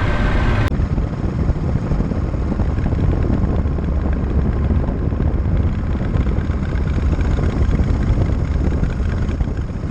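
1937 Matchless Model X's side-valve V-twin engine running steadily under way, a deep continuous rumble mixed with wind rush. Just under a second in, a higher whine drops out abruptly.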